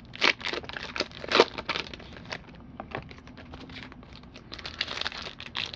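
Baseball card packaging being torn open and handled: irregular crinkling and tearing crackles, strongest in the first second and a half.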